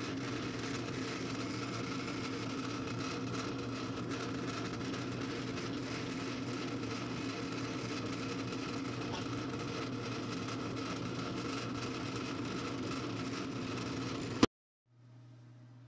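Drill press motor running steadily with an even hum while the bit drills into a small metal block. Near the end the sound cuts off suddenly with a click, leaving only a faint low hum.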